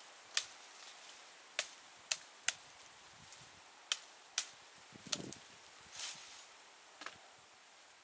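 Sharp snapping cracks of dry twigs and vines being hacked and broken in undergrowth, about nine irregular strikes with a short rustle of leaves about five seconds in.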